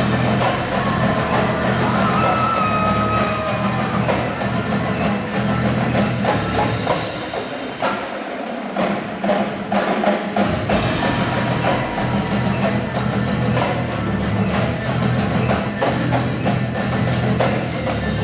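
Indoor percussion ensemble performing: drums and bass drums with pitched mallet percussion, loud and continuous with frequent sharp strikes.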